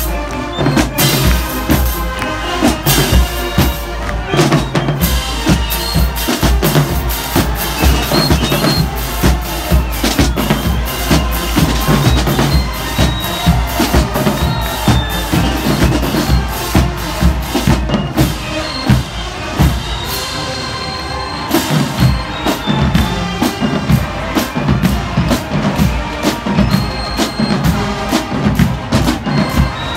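Marching band drumline playing a cadence, with fast snare drum strikes over steady bass drum hits, thinning briefly about two-thirds of the way through.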